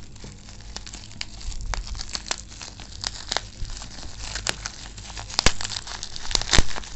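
Plastic bubble wrap crinkling and crackling as hands peel it and its tape off a small bottle. A few sharper clicks stand out in the second half.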